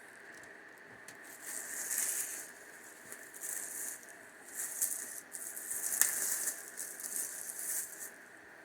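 Packaging being handled and unwrapped: rustling and crinkling in several bouts, with a sharp click about six seconds in.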